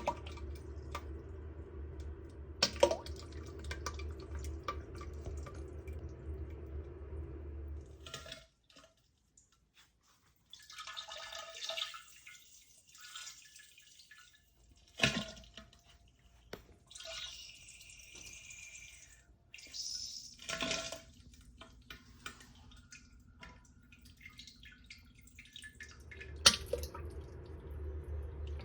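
Someone having diarrhea into a toilet: several short bouts of spluttering, hissing liquid passes, with drips and plops into the bowl water, split by pauses. A low steady hum runs under the first third and comes back near the end.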